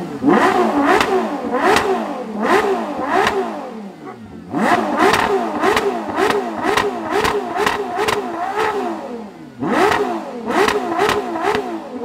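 Ferrari 812 GTS's naturally aspirated V12 revved repeatedly while parked: quick blips of the throttle that rise and fall in pitch. There are three runs of blips, with the engine dropping back to idle about four seconds in and again near ten seconds. The middle run comes quicker.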